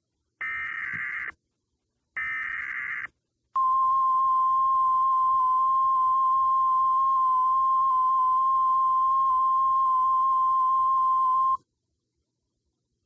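Emergency Alert System broadcast: the last two of three SAME header data bursts, each a harsh digital warble lasting about a second, then the NOAA Weather Radio 1050 Hz attention tone. The tone is a steady, loud single-pitch beep held about eight seconds that stops abruptly, marking the start of a Special Marine Warning alert.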